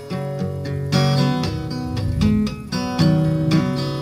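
Acoustic guitar playing solo, plucked notes and strummed chords, with fuller chords struck about a second in and again near three seconds.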